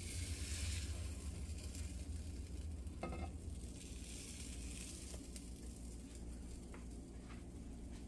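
Pancake batter sizzling in a hot nonstick frying pan, over a steady low hum, with a few short clicks of a spatula against the pan.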